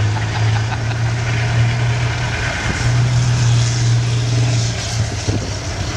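Tanks driving, their engines making a steady low drone that dips briefly about two and a half seconds in.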